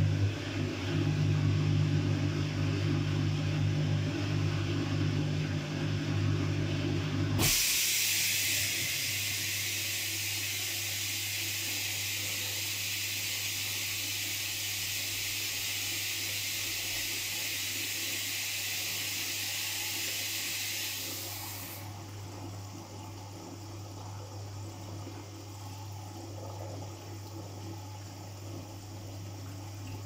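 Front-loading washing machine: the drum turns with a loud motor hum that stops abruptly about seven seconds in. A steady hiss of water follows over a low hum and cuts off sharply some fifteen seconds later, leaving only a quieter low hum.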